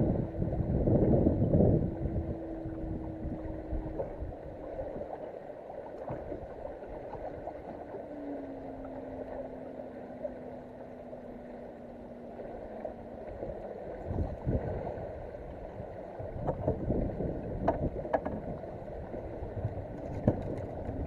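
Water slapping against a bass boat's hull and wind buffeting the microphone, swelling and easing. A low steady hum from the boat's electric trolling motor runs through the first few seconds and comes back slightly lower in the middle. A few light knocks sound near the end.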